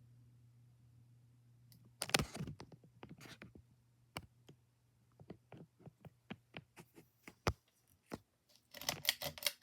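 Ceiling fan coasting down after being switched off: a low hum that fades away over several seconds. Over it come irregular single clicks, and two bursts of rustling about two seconds in and near the end.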